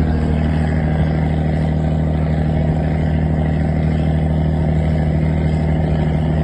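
Riverboat engine running steadily, an even low drone without change.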